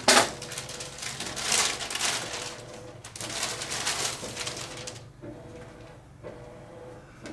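Packing tape being peeled and packaging rustled by hand: noisy tearing and crinkling swells in the first five seconds, quieter after, over a faint steady hum.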